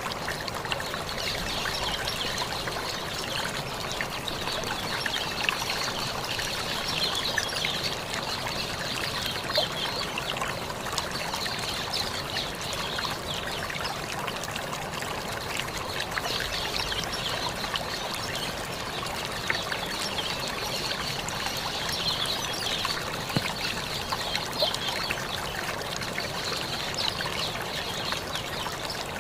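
Forest ambience: a steady, dense chorus of high, crackling chirps, with bird calls scattered through it, taken by the uploader for the hét xoan bird's call.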